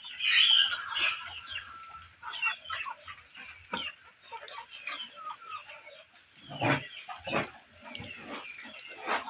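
Pigs grunting and squealing in short, irregular calls. The loudest is a high squeal in the first second, and two deeper grunts come about two-thirds of the way through.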